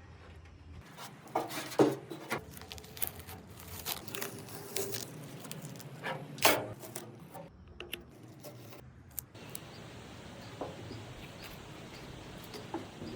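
Workshop handling noises: a string of light knocks and clicks as tools and parts are picked up and set down. From about nine seconds in, a steady rubbing begins, hand sanding of the pedal car's putty-filled metal body.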